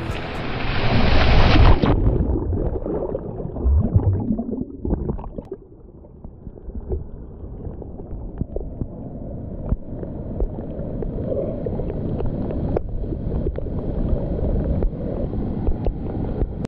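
Sea water sloshing and splashing around an action camera bobbing in the surf, with wind on its microphone. A wave's rush for about the first two seconds stops suddenly, then a rumbling slosh with small knocks runs on.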